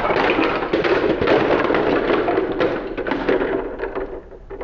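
Plastic Lego train cars crashing and derailing, a dense clatter of knocks as the cars and loose pieces tumble onto concrete, thinning out about four seconds in.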